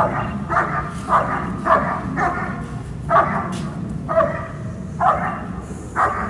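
German Shepherd barking repeatedly and steadily at a decoy holding a bite sleeve, about nine barks at an even pace of one to two a second: a protection dog guarding the decoy with a hold and bark.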